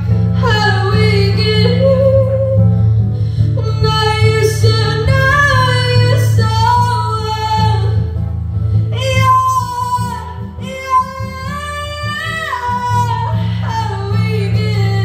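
A woman singing live into a microphone, holding long notes that slide between pitches, over a steady low accompaniment.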